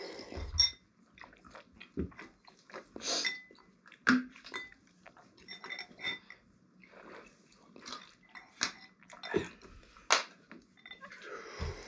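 Two people eating instant noodles from bowls with chopsticks: chewing and slurping, with chopsticks clicking against the bowls at irregular moments.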